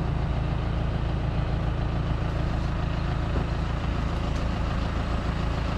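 Audi A6 35 TDI's four-cylinder diesel idling steadily in neutral on a newly replaced dual-mass flywheel, running smoothly without the flywheel rattle.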